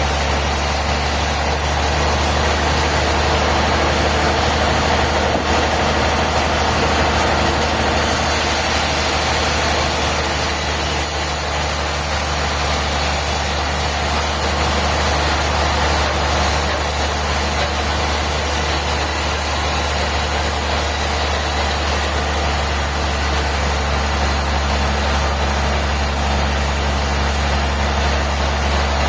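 Heavy engine-driven machinery running steadily: a deep, even hum under a constant hiss, with no change in speed or load.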